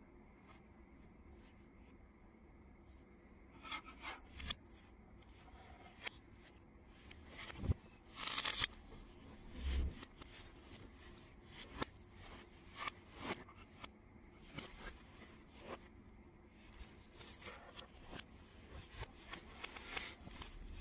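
Small plastic Lego Technic pieces being handled and pushed together by hand: scattered light clicks, rubs and scrapes, with a louder scraping rustle about eight seconds in and a dull knock soon after.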